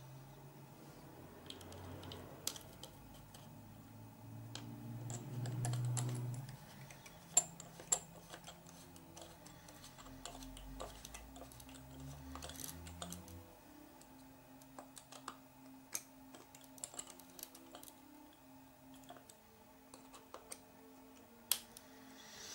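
Scattered small clicks and taps of a hex screwdriver and small parts being handled while screws are driven into a plastic RC truck chassis during kit assembly.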